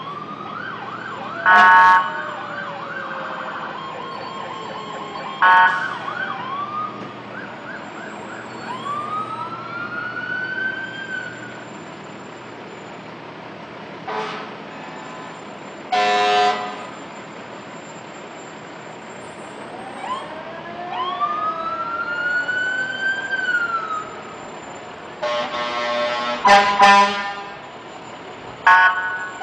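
Parading fire trucks sounding their sirens, wailing up and down in pitch, with several short, loud air-horn blasts, a cluster of them near the end.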